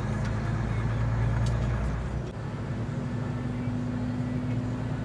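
Semi-truck's diesel engine and road noise heard inside the cab while driving, a steady hum whose engine note shifts about two seconds in.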